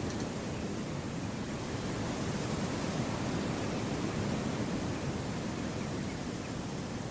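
Gentle wind blowing through a forest: a steady, even rushing noise with no distinct gusts, calls or knocks.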